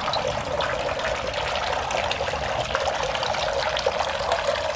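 Small garden fountain running: water trickling from its spouts and splashing steadily into the basin.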